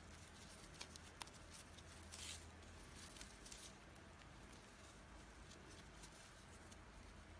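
Faint crackle and rustle of raffia yarn being worked with a crochet hook as it is pulled through the stitches: a few light clicks and a short rustle about two seconds in, over quiet room tone.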